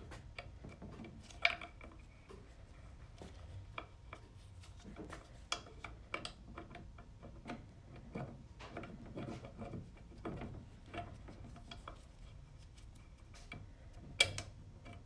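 Light metallic clicks, taps and rubbing as a stepper-motor guide's spring and shaft are worked into an aluminium CVT transmission case against the secondary pulley, with two sharper clicks about 1.5 s in and near the end.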